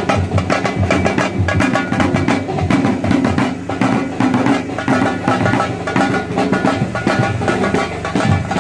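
Drummers beating hand-held drums with sticks in a fast, dense rhythm.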